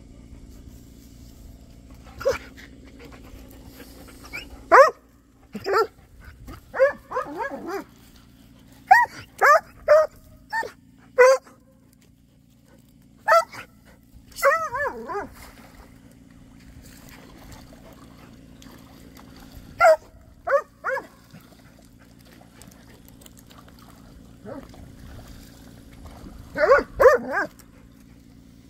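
Poodle barking in bouts, single barks and quick runs of three or four, some calls bending down in pitch into whines.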